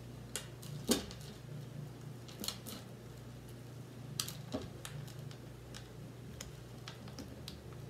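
Scattered small clicks and taps of plastic pony beads and plastic lacing being handled on a wooden tabletop, the loudest about a second in, over a steady low hum.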